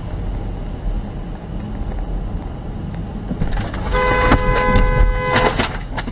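Car horn sounding for about a second and a half, a warning honk at a car swerving in ahead, over the steady road and engine noise of a car driving at highway speed.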